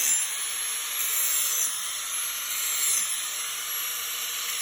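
Grinder grinding the cutting edge of a steel lawnmower blade, a steady hissing grind over a steady motor tone, with the grind changing briefly about 1.7 s and 3 s in as the wheel moves along the edge.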